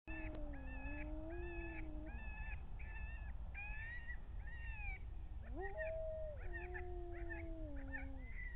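Coyotes howling and yipping: long wavering howls near the start and again from about halfway through, with a run of short, high, evenly repeated yips, over a low steady rumble.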